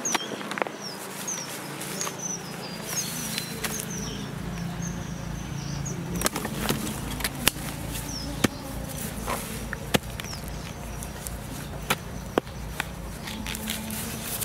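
A bird chirping in short, high, falling notes, over and over for the first few seconds. Irregular sharp knocks follow over a low steady hum.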